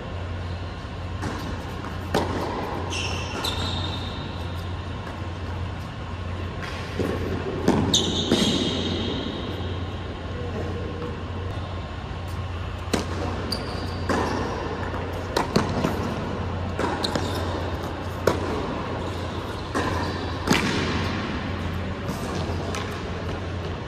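Tennis rallies on an indoor hard court: irregular sharp racket strikes and ball bounces echoing in a large hall, with a few short high shoe squeaks, over a steady low hum.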